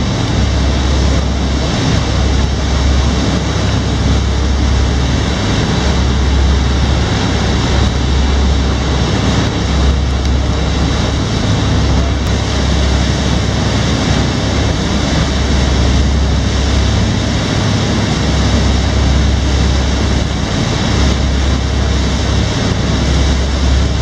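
Tour boat running under way: steady engine drone mixed with water rushing past the hull and wind buffeting the microphone.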